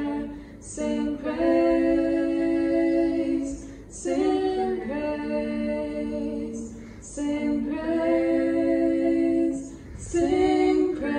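Women's voices singing a song of praise unaccompanied, in long held notes, phrase after phrase with short breaths between them about every three seconds.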